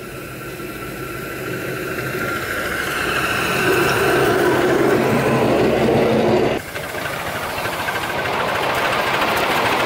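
A 5-inch-gauge live-steam model locomotive hauling a riding train, its running gear getting louder as it comes close and passes, with a steady high-pitched squeal over it. About two-thirds of the way through, the sound cuts abruptly to another live-steam model locomotive running with a rapid, even beat.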